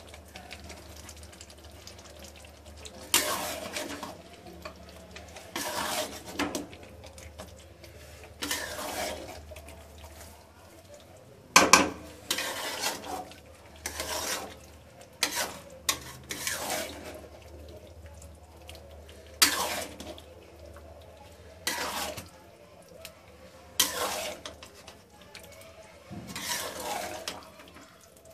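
Metal spatula stirring and turning chicken pieces in thick masala in a large aluminium pot: a wet scrape every couple of seconds, with one sharp clank against the pot about a third of the way in.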